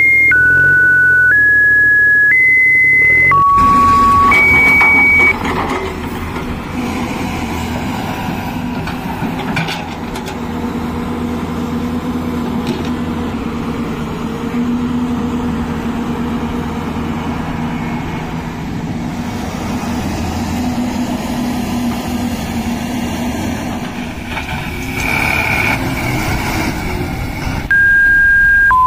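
A simple tune of plain electronic beeps, one note at a time at changing pitches, for about the first five seconds. Then a diesel excavator engine runs steadily while the machine digs, for about twenty seconds. The beep tune comes back near the end.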